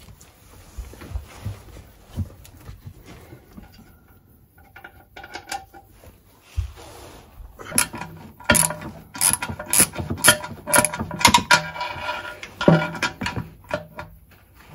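Socket ratchet clicking in repeated back-and-forth strokes as a sump bolt on an engine's oil pan is undone, starting about halfway in. Before that there are only quieter handling noises and a couple of knocks.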